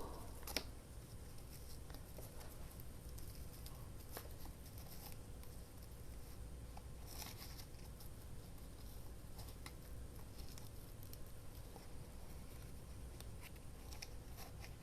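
Faint rustling and scattered soft ticks of a paper tag and ribbon being handled as the ribbon is tied on, over a faint steady hum.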